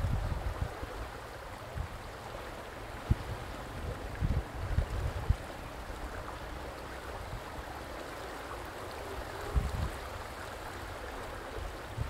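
Vistula river water flowing and lapping steadily, with a few short low gusts of wind buffeting the microphone.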